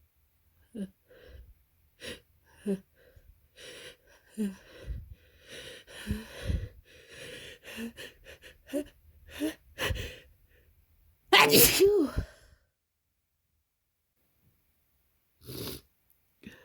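A person with a heavy head cold builds up to a sneeze with a string of short hitching breaths and sniffles. It breaks into one loud sneeze about eleven seconds in. A short sniffle follows near the end.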